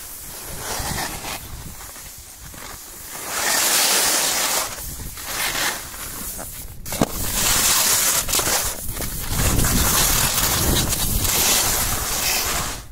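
Skis hissing and scraping over packed snow on a downhill run, with wind rumbling on the microphone. The noise swells and fades several times, loudest in two long stretches in the second half.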